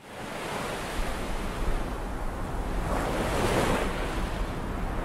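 Storm waves breaking over a seawall in typhoon winds, with wind rumbling on the microphone. The surf swells louder about three seconds in.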